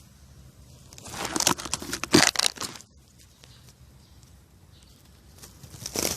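Crinkling, crumpling rustle of something being handled or disturbed, in two bursts: one from about a second in lasting nearly two seconds, and another starting near the end.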